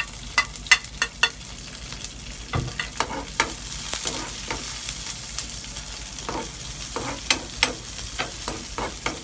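Chopped garlic and red chilies sizzling in hot oil in a stone-coated frying pan while being stir-fried until fragrant, with a metal spoon clicking and scraping against the pan at irregular moments.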